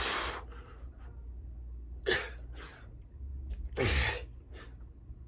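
A man's sharp, forceful exhales, some with a short falling grunt, one per push-up rep, three times about two seconds apart, as he strains through the set.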